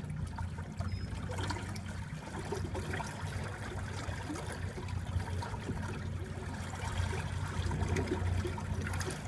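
Water trickling and splashing along the hull of a small boat moving at about 6 km/h under an electric trolling motor on its top speed setting, with a low steady hum beneath.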